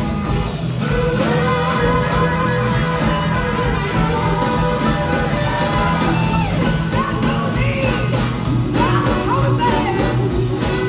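A live blues-soul band with electric guitars, a horn section, drums and keyboards plays under a woman's lead vocal, which holds wavering notes.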